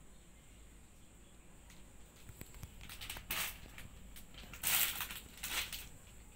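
Crinkly rustling of a flower bouquet's plastic wrapping as a cat pushes into it and shifts it, in three short bursts in the second half, the middle one the loudest.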